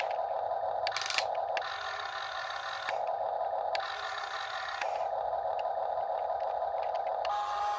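Huina 1/14 scale RC excavator's small electric motors whining through the gearboxes as the model is worked in short start-and-stop movements, the whine changing every second or so, with clicks and gear clatter between movements.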